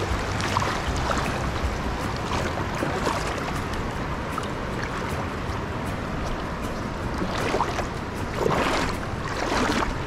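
Flowing stream water rushing and sloshing close to the microphone as otters swim through the shallows, with a few louder splashes in the last few seconds.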